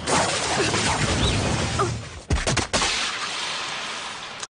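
Anime sword-fight sound effects: a loud noisy rush, then a quick cluster of sharp slashing hits a little over two seconds in, followed by a noisy tail that cuts off suddenly.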